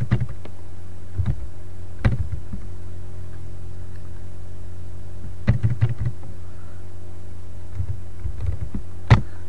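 Scattered computer keyboard key presses, a few at a time with pauses between, the sharpest just before the end, over a steady low electrical hum that runs under the whole recording.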